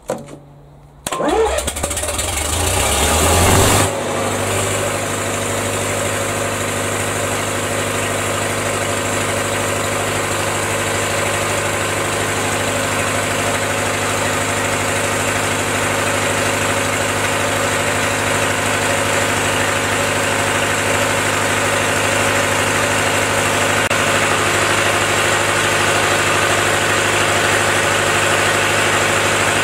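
Lister four-cylinder diesel generator set starting on its electric starter: a click, a brief crank, and the engine catches about a second in. It runs up unevenly for a couple of seconds, then about four seconds in settles into a steady, even run.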